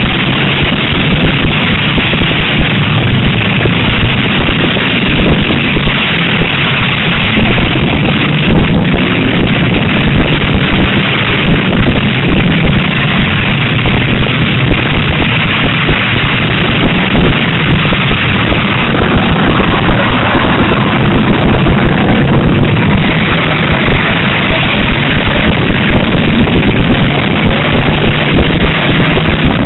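Demolition derby cars' engines running and revving together in a loud, continuous din.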